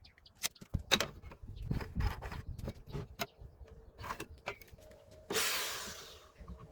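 Workshop handling of wood and tools: a run of irregular light clicks and knocks. About five seconds in comes a sudden hiss that fades away over a second.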